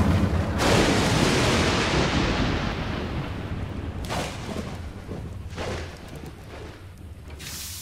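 A thunderclap breaks about half a second in, its crackling rumble dying away over several seconds. Three weaker cracks of thunder follow later, each fainter than the last.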